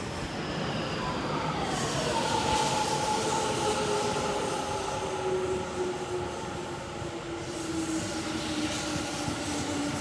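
Inside a commuter train carriage: the rumble of running on the rails under a motor whine whose pitch falls steadily as the train slows.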